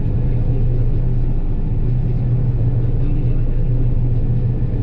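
John Deere 9770 combine running steadily under harvest load, a constant deep engine hum that holds level.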